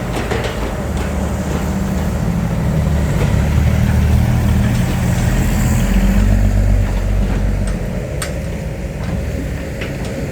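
Isuzu Deca dump truck's diesel engine pulling away under load on soft sand. It builds to its loudest in the middle and eases off after about seven seconds.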